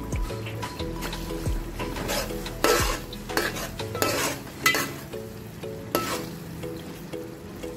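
Chicken pieces cooking in a reducing tandoori sauce in a metal pot, sizzling and bubbling while being stirred, with a few louder stirring strokes about two to three seconds, four to five seconds and six seconds in.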